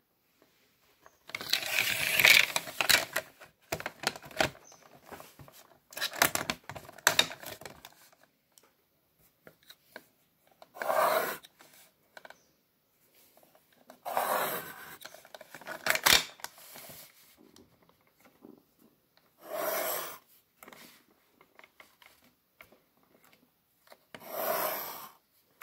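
Pencil scratching along the rulers of a drafting machine on drawing paper, in about eight separate strokes of one to two seconds each, with a sharp click about sixteen seconds in.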